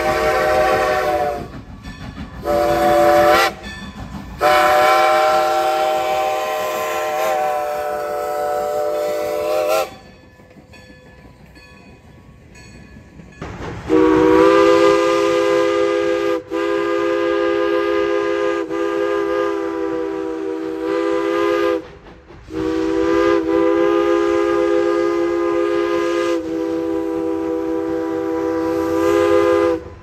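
Steam locomotive's Lunkenheimer 6-inch chime whistle blowing a series of loud blasts, each a chord of several notes. A short toot comes about three seconds in, and after a pause of a few seconds, in which the train is heard only faintly, the long blasts resume.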